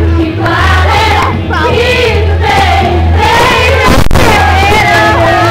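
A group of girls singing along to loud backing music, the sung melody lines held and sliding. There is one sharp knock about four seconds in.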